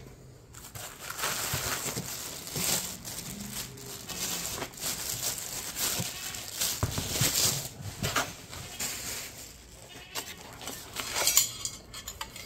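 Plastic wrap crinkling and packing foam rubbing as the wrapped solar panel and light fixture are lifted out of a cardboard box, a dense irregular rustle with scattered sharper crackles.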